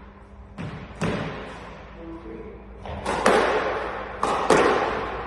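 Squash rally: a squash ball being struck by rackets and slapping off the court walls, five sharp hits, each echoing in the court, the loudest three in the second half.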